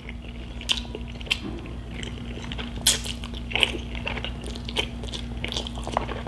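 Close-miked eating of spaghetti carbonara: pasta strands sucked in and chewed, with scattered wet mouth clicks and smacks.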